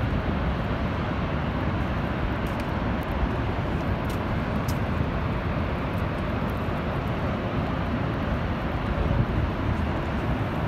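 Niagara Falls rushing: a steady, even roar of falling water that holds at one level throughout.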